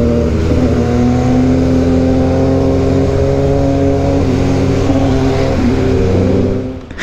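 Suzuki Hayabusa's inline-four engine under way, shifting up about half a second in and then pulling steadily with its pitch slowly rising as the bike gathers speed.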